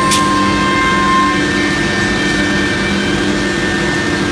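CNC wood router running, its 6 kW HSD spindle machining a panel on the vacuum table: a steady, loud machine drone with several held tones. A brief high swish comes just after the start.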